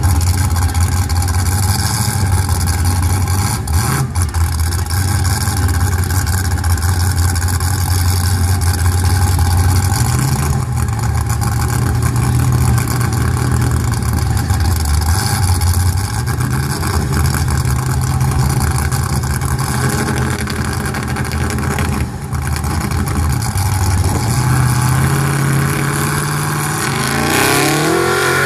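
Lifted mud-bog truck's engine idling loudly as a steady low drone, then revving up hard with rising pitch near the end as the truck launches into the mud pit.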